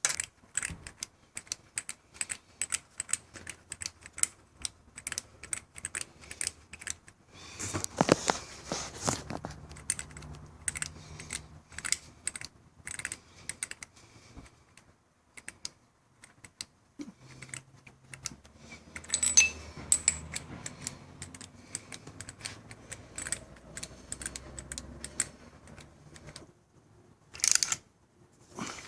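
Irregular light clicks and rattles of small metal parts and hand tools being handled, with denser bursts of clicking and scraping about eight seconds in and again around nineteen seconds.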